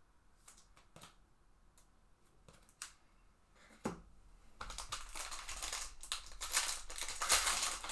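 A few faint clicks, then from about halfway a loud, continuous crinkling rip as a foil trading-card pack of 2021 Panini Contenders Baseball is torn open by hand.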